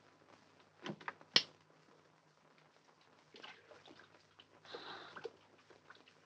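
A door handle clicks and the door knocks shut about a second in, the knock the loudest sound. Later, a short spell of running tap water and splashing comes as a face is washed at a sink.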